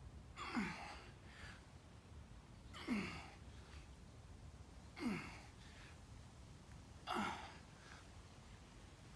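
A weightlifter's forceful exhalations, a short voiced sigh-grunt falling in pitch, one on each repetition of a 150 kg Romanian deadlift. They come four times, about two seconds apart, with the strain of the lift.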